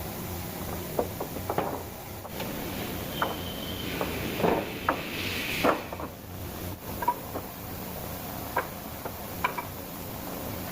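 Wood and tools being handled: scattered light knocks and clicks with a short scraping rub about five seconds in, over a steady background hiss. No power saw is running.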